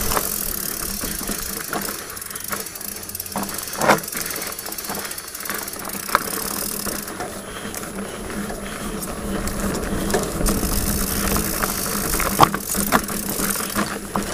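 A Diamondback Mason Pro hardtail mountain bike ridden over a dry, rocky dirt trail, heard from a helmet camera. There is a steady rushing noise of tyres and air, with the bike rattling and clicking over bumps and a few sharp knocks, the loudest about four seconds in.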